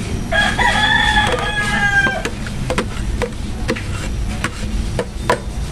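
A rooster crows once, a drawn-out call of nearly two seconds, over a steady low rumble. About half a dozen sharp clicks follow.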